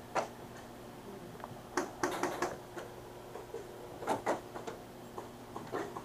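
Airsoft gunfire: scattered sharp snaps, single and in quick clusters of three or four, the busiest about two seconds in and another pair about four seconds in.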